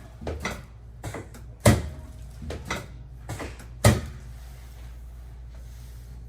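Knocks and clunks during a chiropractic adjustment on a treatment table: a run of short, sharp impacts, the two loudest about 2 and 4 seconds in.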